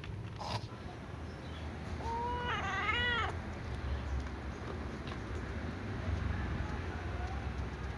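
A small cat meows once, a single wavering call of just over a second, about two seconds in, over a steady low background hum.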